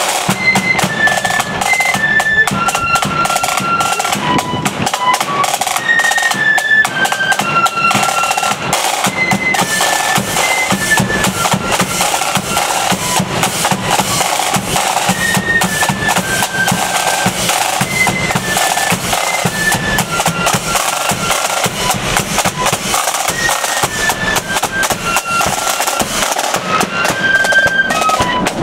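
Marching flute band playing a tune: flutes carry the melody over continuous side-drum beating and rolls.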